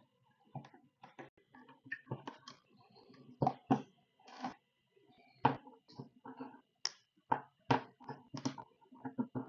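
Irregular clicks, taps and light knocks of small hand tools and metal parts being handled while brushless motors are mounted on a drone frame, with a dozen or so sharper knocks at uneven intervals.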